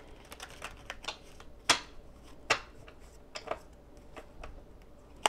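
Tarot cards being handled and tapped on a table: a run of light, irregular clicks and taps, two of them sharper in the first half.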